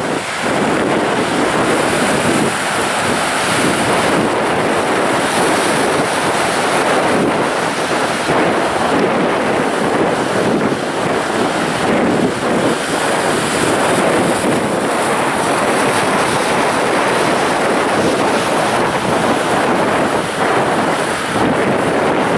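Sea waves breaking and washing in over shoreline rocks: a steady, unbroken rush of surf.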